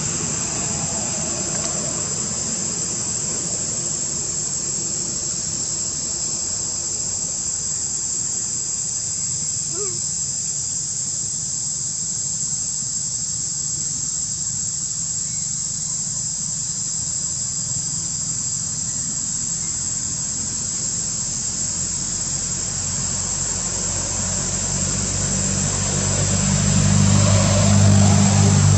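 Outdoor ambience of a steady, high-pitched insect drone over a low engine hum. The hum grows louder near the end as a motor vehicle's engine comes closer.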